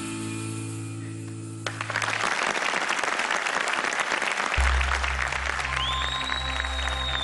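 A held music chord fades out, then studio audience applause sets in. About halfway through, new background music with a low steady bass note comes in under the applause.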